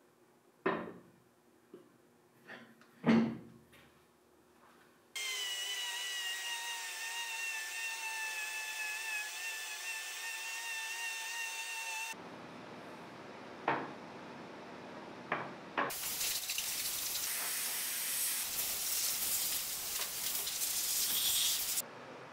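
A few knocks and clunks of wood and metal parts being handled, then a random orbital sander running on a wooden board with a steady high whine over a hiss. After a cut there are a couple more knocks, then a loud steady hiss that cuts off suddenly near the end.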